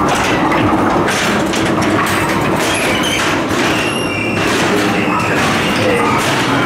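A 1961 Mack Rides ghost train car clattering and knocking along its track through the ride, with frequent thuds.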